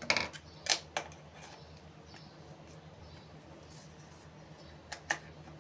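Sharp clicks and taps of a glass spice jar of sesame seeds and its black lid being handled and the lid fitted on: three clicks in the first second and two more close together near the end.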